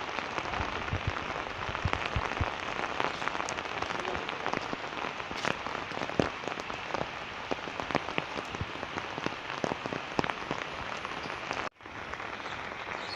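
Rain falling steadily, a dense patter of many drops hitting water and hard surfaces. The sound cuts out for an instant near the end.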